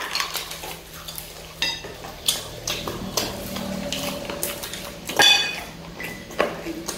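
Eating at a table, chicken wings pulled apart by hand: scattered short clicks and clinks of plates and eating, with a louder ringing clink about five seconds in.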